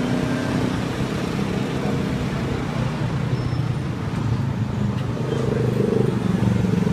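Street traffic: motor vehicle engines running close by at a steady hum, with an engine growing louder near the end as a motorcycle approaches.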